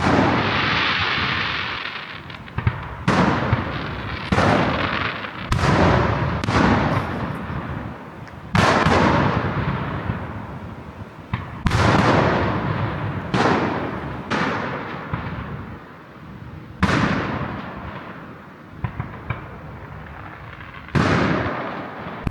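Fireworks going off: a string of about ten sharp bangs, irregularly spaced a second or a few seconds apart, each fading away over a second or two.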